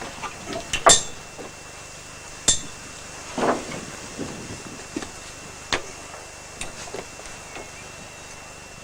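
Scattered sharp knocks and clanks as a heavy home-built bandsaw is shifted and propped on boards with a bar, the loudest about a second in and a few more through the next several seconds.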